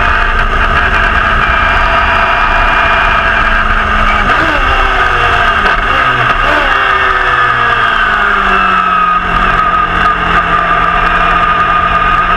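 Repco V8 racing engine of a 1969 Brabham BT31 running hard on track, heard onboard over wind noise. The pitch swoops briefly a few times around four to six seconds in, then falls slowly from about eight seconds in as the revs drop.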